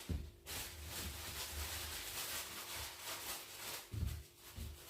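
Handling noise from the recording phone being moved and repositioned: faint rustling over a steady hiss, with a few dull bumps, the strongest about four seconds in.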